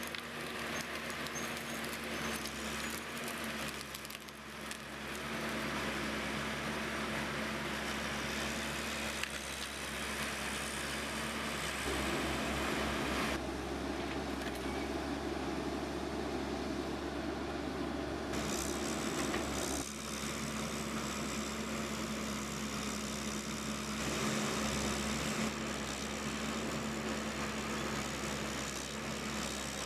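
Heavy machinery engines running steadily with a constant hum, the sound changing abruptly several times.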